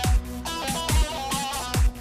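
Kurdish wedding dance music: a synthesizer melody of held, wavering notes over a deep, booming kick drum that lands strongly about once a second.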